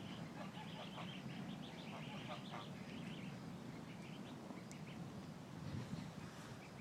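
A rapid series of short bird calls over a low steady rumble, with the calls thick in the first half and thinning out after.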